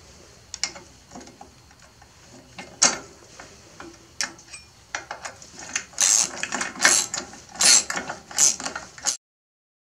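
Socket ratchet wrench on an extension bar clicking in short runs as it turns the mounting bolts of a winch and roller fairlead. The clicking grows louder and denser in the last few seconds.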